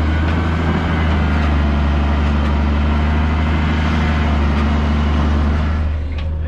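A heavy vehicle's engine running steadily close by, a loud, unbroken low hum that eases off slightly near the end.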